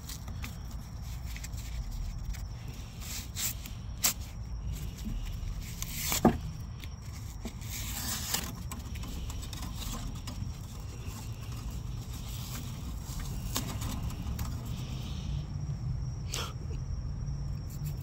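Scattered clicks and light knocks of refrigeration tubing and sheet-metal parts being handled at a wine cooler's compressor, over a steady low rumble; the sharpest knock comes about six seconds in.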